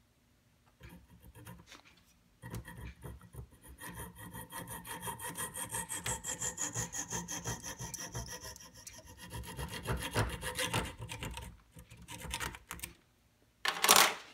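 Small frame saw cutting the protruding wooden wedge and oak shims off at the top of a hammer head held in a vise, in quick, even back-and-forth strokes with a faint ringing from the blade. A single loud knock comes near the end.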